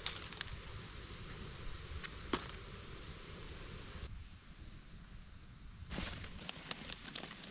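Dry leaf litter and twigs rustling and snapping under gloved hands picking in forest undergrowth, with scattered sharp clicks, one louder snap a little after two seconds. In a quieter stretch in the middle, four short high chirps repeat about twice a second, then the rustling resumes.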